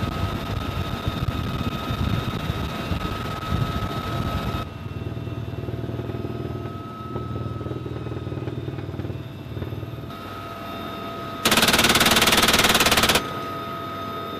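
UH-1Y Venom helicopter running, a steady engine and rotor noise with a high whine, then a single long burst of very rapid machine-gun fire from a helicopter door gun near the end, lasting under two seconds and far louder than the rest.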